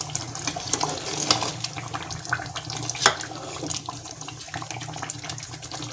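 Chicken korma masala sizzling and crackling in hot oil in a pan as it is fried down, with a steady hiss broken by many small pops and a sharper crack about three seconds in. The masala is well fried, at the stage where the oil separates.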